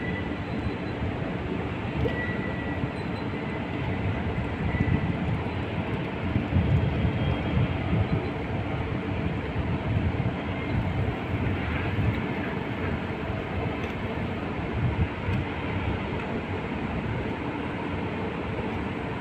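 Marine diesel engine running with a steady low rumble that swells a little about a third of the way through.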